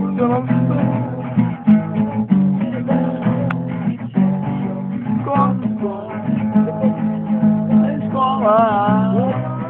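Acoustic guitar strummed steadily, playing chords.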